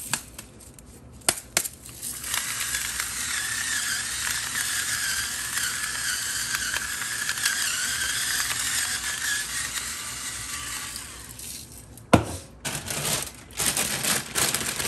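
Battery-powered electric salt grinder running for about nine seconds: a small motor's thin whine over the gritty crunch of salt crystals being ground. A single sharp knock comes near the end.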